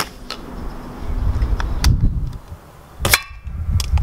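A .22 air rifle pellet striking the stone and metal target stand about three seconds in: one sharp crack with a short ringing after it, louder than a few faint clicks earlier, over a low rumble.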